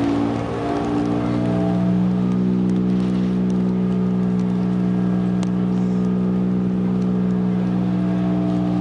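A machine drones steadily with a low pitched hum. Its pitch shifts and settles in the first second or two, then holds steady. Faint scattered ticks sound over it.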